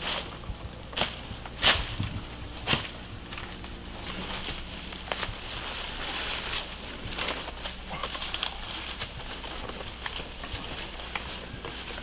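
Dense undergrowth being pulled and pushed through by hand: four sharp snaps of breaking stems and twigs in the first three seconds, then steady rustling and crackling of leaves and grass as a person climbs through the thicket.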